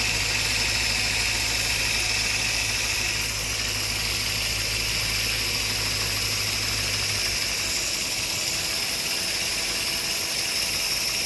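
Land Rover LR3's 4.4-litre V8 idling with a misfire, not running well. Its low hum fades out about seven seconds in, leaving a steady hiss.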